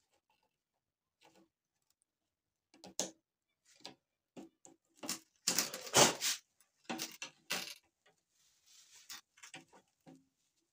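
Pliers clicking and scraping on the crimp tabs of an aluminium radiator header as the tabs are bent straight. Irregular sharp metallic clicks, busiest and loudest around the middle.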